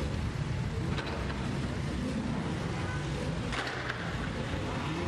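Car engines running at low speed as cars pull away one after another on wet tarmac, a steady low rumble with faint background chatter.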